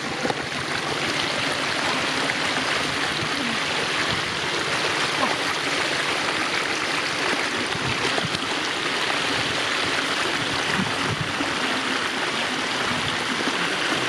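Steady rushing of flowing water, an even noise that holds at one level throughout.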